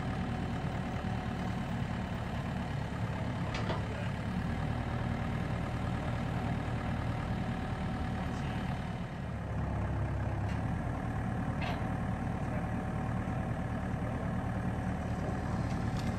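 Bobcat mini excavator's diesel engine running steadily under load while it drags a steel I-beam out on a chain, its low note changing about nine seconds in. A few faint metallic clinks come through.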